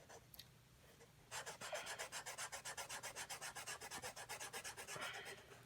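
Felt-tip marker scribbling to fill in letters, rapid back-and-forth strokes of about eight a second, starting about a second and a half in and stopping near the end.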